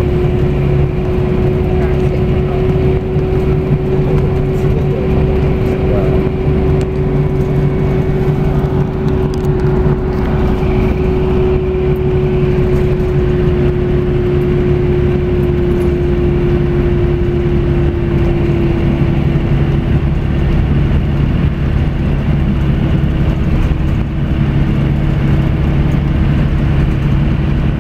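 Inside a Scania coach near the rear, cruising on an expressway: a steady engine drone and road noise, with a whine that drops slightly in pitch about two-thirds of the way through.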